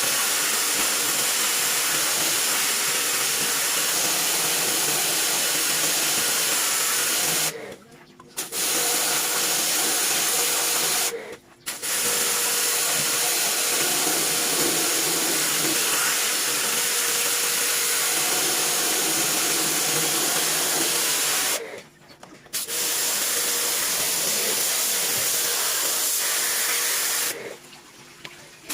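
High-pressure water spray hissing steadily as an air conditioner is washed. It stops briefly about 8 and 11 seconds in, again around 22 seconds, and once more near the end, as the spray is shut off and restarted.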